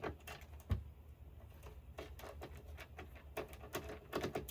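Irregular light clicks and taps of a screwdriver and small screws being worked out of the oscilloscope's screen mount, with a dull knock about a second in.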